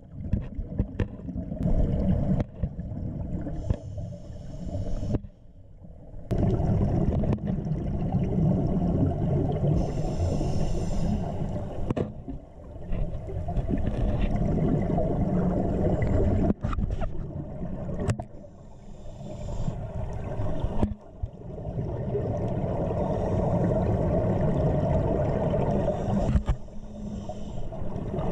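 Scuba regulator breathing picked up underwater: long rumbling gushes of exhaled bubbles lasting several seconds each, separated by short pauses, with a brief hiss near the middle.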